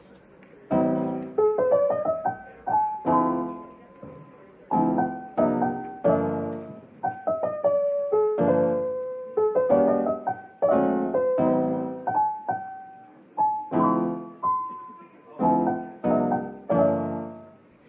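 Background music: a piano tune, chords struck about once a second and left to ring out and fade.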